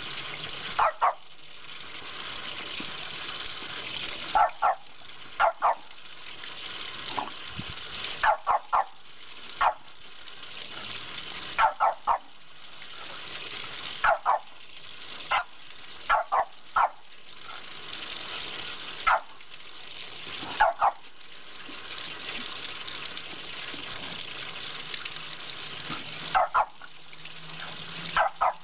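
French Bulldog barking in play at a spraying water stream: short, sharp barks, singly or in quick runs of two or three, every few seconds. Under the barks runs the steady hiss of the water jet splashing onto concrete.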